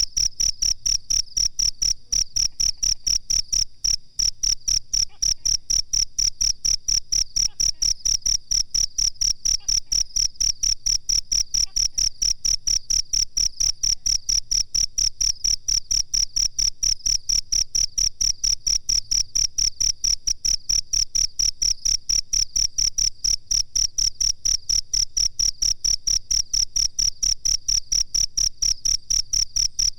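Cricket chirping steadily: a long run of rapid, evenly spaced, high-pitched chirps.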